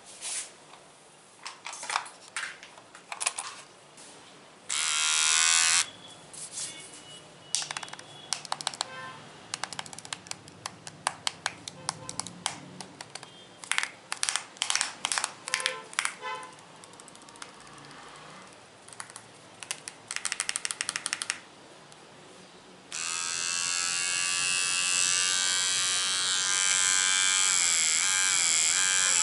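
Assorted objects tapped and clicked with the fingers in irregular runs, with a couple of short buzzing bursts. Near the end a small electric motor starts a loud steady buzz, like an electric shaver or clipper.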